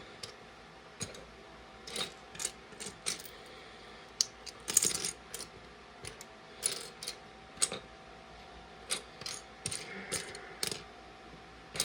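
Loose plastic LEGO pieces clicking and clattering against one another as they are rummaged through in search of a part. The light clicks are irregular, with a denser clatter about five seconds in.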